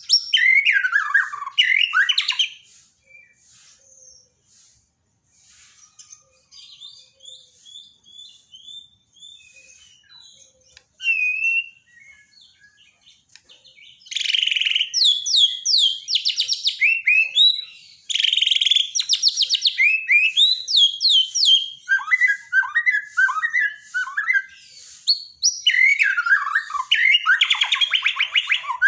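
White-rumped shama (Bornean murai batu) singing a fast, varied song of whistled phrases and trills. The song drops to faint, scattered notes for about ten seconds early on, then comes back loud and almost unbroken about halfway through.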